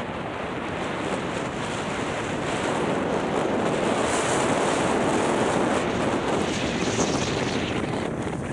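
Wind rushing over the microphone together with skis hissing over groomed snow on a downhill ski run, a steady noise that grows louder through the middle.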